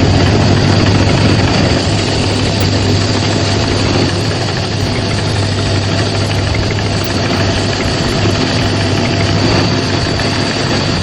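Electric power tool's motor running steadily, with a strong low hum and a faint high whine.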